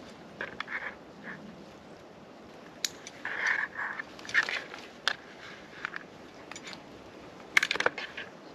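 A backpack being handled and rummaged through: irregular rustling and scraping of fabric and gear, with a few sharp clicks and a louder burst of handling near the end.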